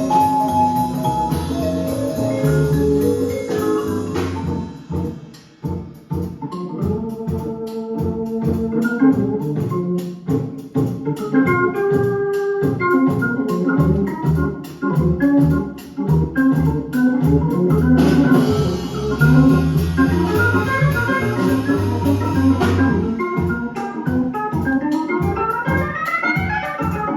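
Organ-led music played from a vinyl record on a turntable fitted with a Dynavector DV XX2 MkII moving-coil cartridge, with a steady beat and a quick run of notes rising in pitch near the end.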